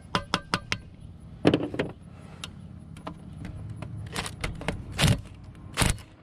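Metal tools clicking and clattering against an alternator's rear housing as a screwdriver and then a cordless drill/driver's bit are fitted to its screws. A quick run of clicks comes first, then a few sharper, separate clatters.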